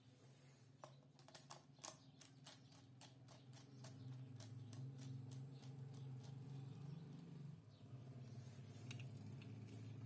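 Near silence with faint small clicks and taps from a screwdriver and a wire being worked into a miniature circuit breaker's screw terminal, most of them in the first few seconds. A low steady hum comes in from about four seconds in.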